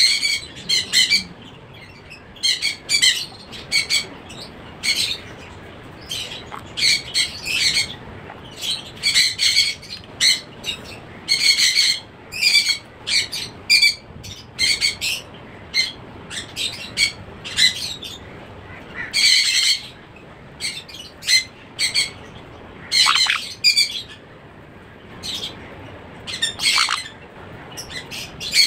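Sun conure chick calling over and over while held, short high calls in clusters a second or so apart; two calls near the end slide down in pitch.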